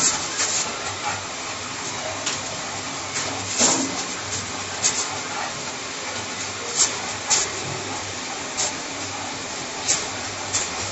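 Hands rubbing and rolling damp semolina grains to form berkoukes, giving short rasping rustles at irregular intervals, about one a second, over a steady hiss.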